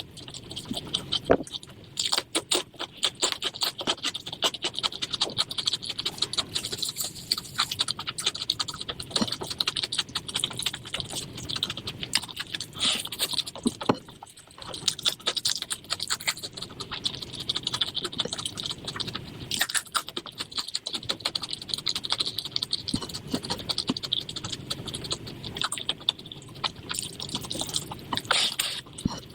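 Close eating sounds of someone chewing chicken liver and gizzard curry with rice: a dense run of small wet clicks and smacks, with a few short pauses.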